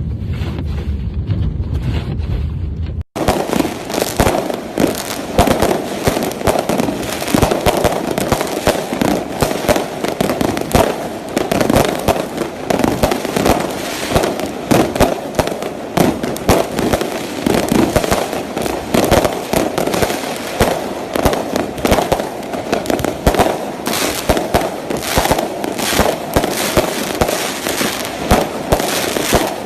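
Low wind rumble that cuts off about three seconds in. It gives way to a dense, continuous barrage of New Year's fireworks crackling and popping.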